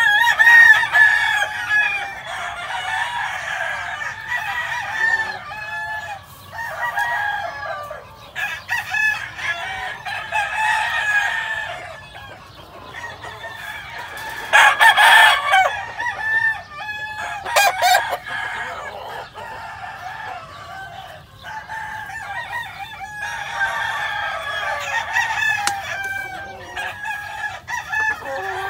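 Gamecocks crowing, several overlapping one another, with clucking between the crows. About halfway through comes one louder, harsher stretch.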